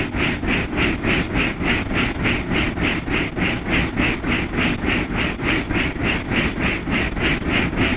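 Helicopter rotor beating in flight, heard from inside the cabin: a steady rhythmic thudding at about four or five beats a second over a constant low engine rumble.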